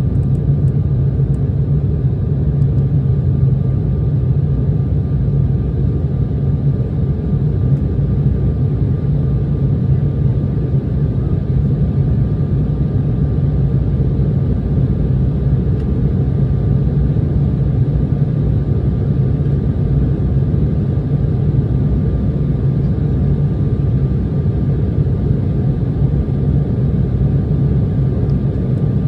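Steady cabin noise inside a JAL Embraer E170 jet airliner in flight: a low, even rumble of the twin engines and the airflow, with a faint steady whine above it.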